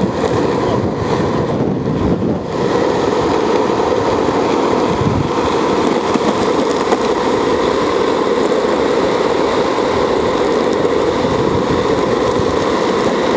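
Loud, steady road noise while moving along the asphalt: wheels rolling on the road surface and wind rushing over the microphone.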